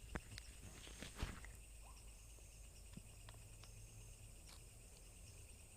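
Near silence: a faint steady chirring of night insects, with a few soft clicks and rustles of footsteps in brush.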